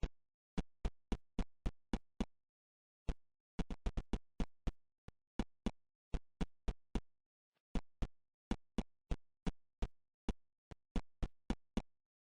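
A long run of sharp, short taps, about three or four a second, in uneven bursts with brief pauses and dead silence between each tap.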